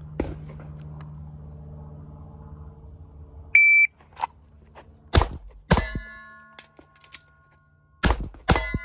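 An electronic shot timer gives one short beep to start the string, then a handgun fires four shots in two quick pairs about three seconds apart. A metallic ringing hangs on after the second shot of each pair, like steel targets being hit.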